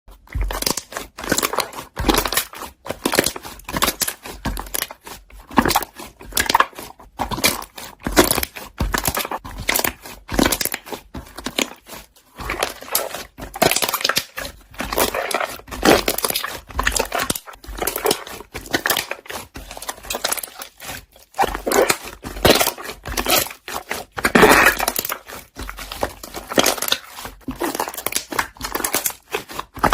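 Slime being worked so that trapped air bubbles pop in quick, irregular crackling clicks.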